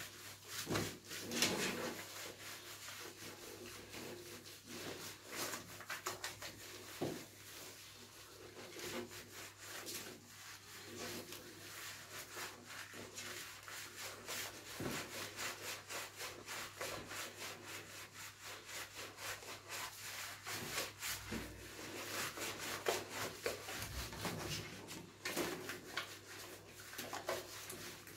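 Hands scrubbing shampoo lather into a wet dog's coat: a continuous run of quick, wet rubbing strokes.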